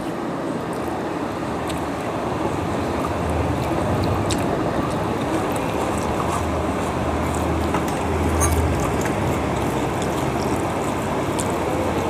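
Steady rushing background noise with a low hum that swells now and then, and faint small clicks of hand-eating from a plate.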